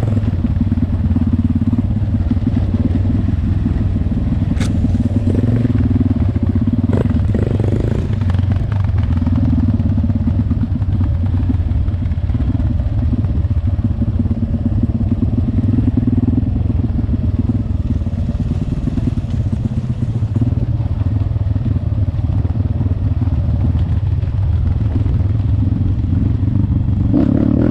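Trail motorcycle engine running at low, steady throttle over a rough dirt track, with the bike clattering over bumps and two sharp knocks about four and a half and seven seconds in.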